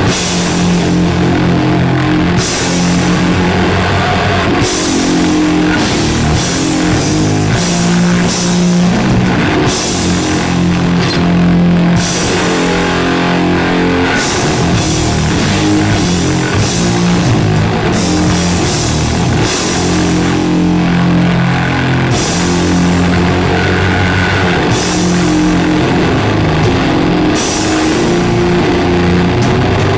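Sludge/doom metal played live and loud: heavily distorted electric guitar holding slow, low chords that change every second or two, over a drum kit with repeated cymbal crashes.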